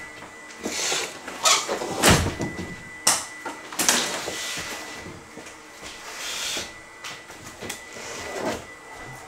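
Wooden kitchen wall cabinet being wrenched off the wall and handled: a few sharp wooden knocks and bangs in the first four seconds, with scraping and rubbing in between and later. A faint steady high tone runs underneath.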